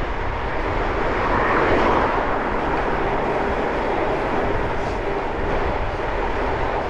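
Wind rushing over an action camera's microphone while cycling, mixed with road traffic noise, a steady rumble that swells slightly a second or two in.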